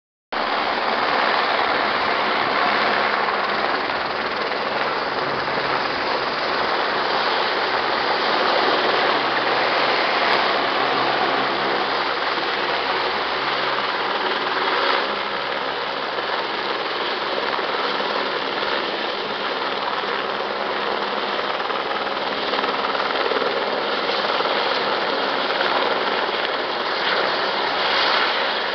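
Helicopter turbine and main rotor running loudly at a low hover, a steady dense roar with rotor chop, as it refills its firefighting water bucket.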